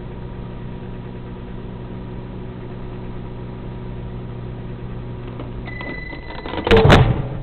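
Microwave oven running with a steady hum through the last seconds of its 10-second heating, stopping as the timer reaches zero with one short beep about six seconds in. Near the end comes a loud clunk as the microwave door is opened.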